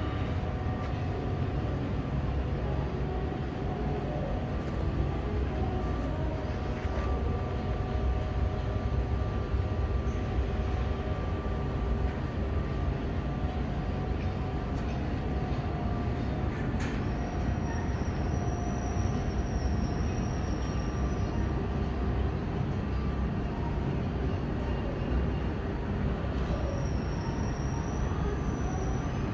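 Steady machinery rumble of a foundry hall, with a constant hum. A thin high whine comes in twice in the second half.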